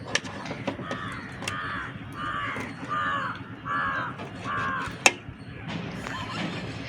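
A crow cawing six times in a row, evenly spaced calls about two-thirds of a second apart. A sharp click sounds about five seconds in.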